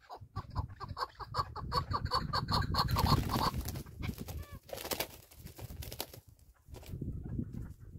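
Partridges calling: rapid runs of clucking notes, about eight a second, through the first half, with a few sharp clicks around the middle over a low rumble.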